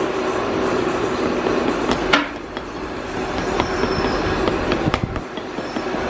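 Steady drone of workshop machinery, with a few sharp taps about two seconds in and again near five seconds as a trowel works the sand of a casting mould box.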